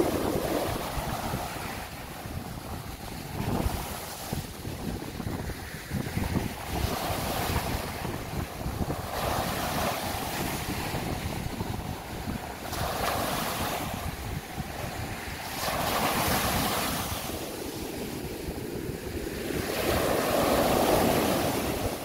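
Sea surf breaking and washing up a sandy beach, swelling and ebbing in a rush of foam every two to three seconds, the biggest wash near the end. Wind rumbles on the microphone underneath.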